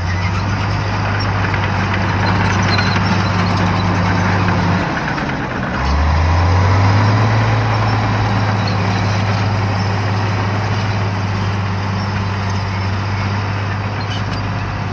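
Shantui bulldozer's diesel engine running steadily with a broad rushing noise over it. The engine note drops briefly about five seconds in and picks back up, stronger, a second later.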